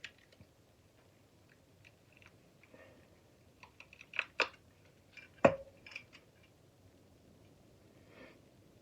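Scattered light clicks and taps of metal parts being handled, with two sharp knocks about four seconds in and a louder knock about five and a half seconds in that rings briefly, like a metal piece of the shop vac motor being set down.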